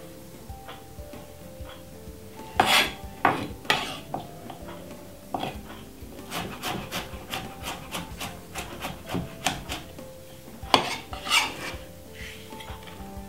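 Chef's knife slicing a garlic clove on a wooden cutting board: the blade knocks on the board in irregular runs of quick cuts.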